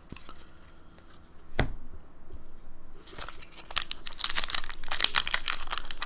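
Foil Pokémon card booster pack wrapper crinkling and tearing as it is opened by hand, starting about halfway through after a quiet start with a single click.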